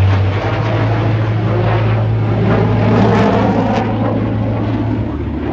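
Jet engine roar from a formation of aerobatic jets flying past, swelling to its loudest midway and easing off toward the end.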